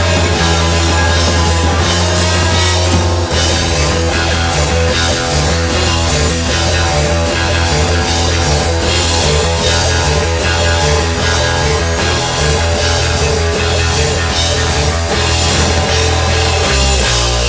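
Rock band playing live, electric guitar and drum kit in a steady, loud instrumental passage with no singing.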